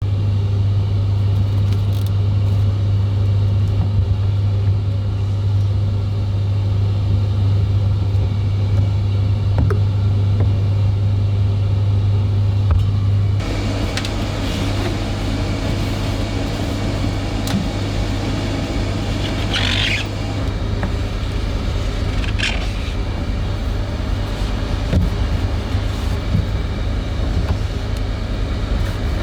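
Laundry machine running with a steady low hum. About 13 seconds in the hum drops away and a rougher, noisier running sound carries on, with two brief high scrapes around the twentieth and twenty-second seconds.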